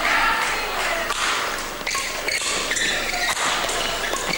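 Badminton doubles rally: several sharp racket hits on the shuttlecock, short shoe squeaks on the court and a steady murmur of spectators in the hall.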